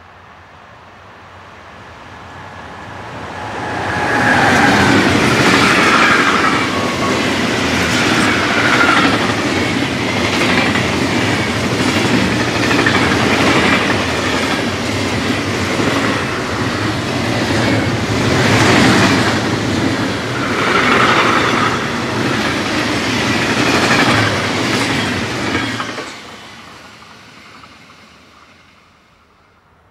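A freight train hauled by a Siemens Vectron (class 193) electric locomotive approaches and passes at speed, pulling empty container flat wagons: the noise grows over the first few seconds, then the steady running noise of the wagons' wheels on the rails lasts about twenty seconds. It drops away sharply as the last wagon passes, with about four seconds left, and fades.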